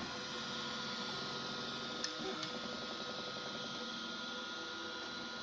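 A 3D printer running mid-print: its stepper motors whine in steady tones over a constant hiss, with two light clicks about two seconds in.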